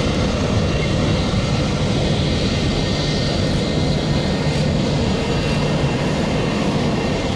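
Boeing 747-400 LCF Dreamlifter climbing out after takeoff: the jet noise of its four turbofan engines, a steady, loud, deep rumble.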